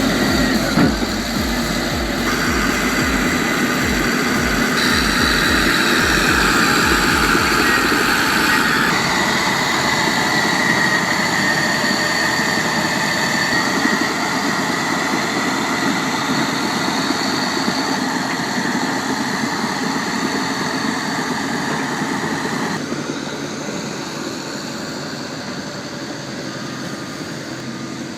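Bulldozer diesel engine running under load, with a fast low throbbing in the first several seconds and then a steadier machine noise. The sound changes abruptly a few times.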